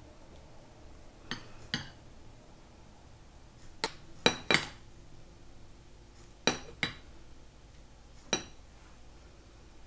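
Kitchen dishes and utensils clinking: about eight sharp clinks, several in quick pairs, each with a brief ring.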